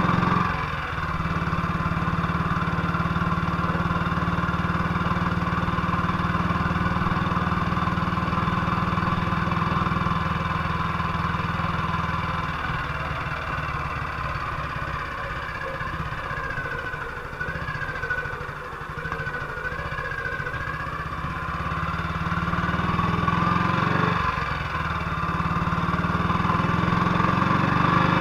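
BSA C12's 250 cc single-cylinder four-stroke engine running steadily after its misfire was repaired. The engine note drops about twelve seconds in and picks up again toward the end.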